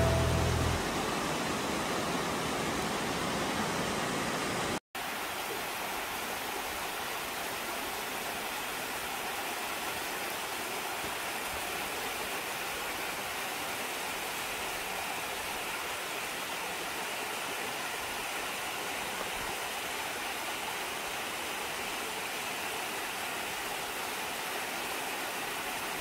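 Mountain waterfall cascading over granite into a rock pool: a steady, continuous rush of falling water. It breaks off for an instant about five seconds in, then carries on unchanged.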